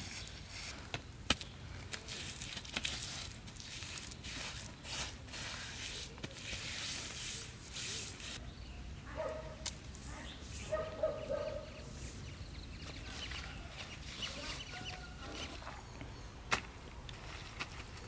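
Bare hands patting and smoothing wet mortar over a leaf-lined sand mound: soft wet pats, scattered small clicks and leaf rustles. About nine and again about eleven seconds in, a short animal call stands out, like a domestic fowl.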